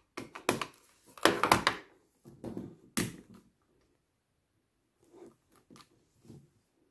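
Clicks and knocks of a plastic ink pad case and clear photopolymer stamps being handled and set down on card stock, the loudest about a second and a half in, then a pause and a few faint taps.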